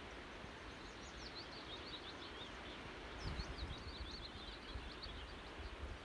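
A small songbird singing two rapid twittering phrases of high chirps, the second starting about three seconds in, over a low rumble of wind buffeting the microphone that gusts up around the same time.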